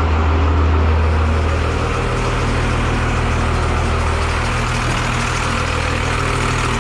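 Cummins 5.9 inline-six diesel in a Chevy truck running steadily, a deep even hum under a wash of engine noise.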